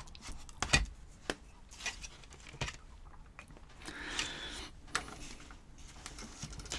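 Light, irregular clicks and knocks of watercolour painting things being picked up and set down on a desk, with a brief rub about four seconds in.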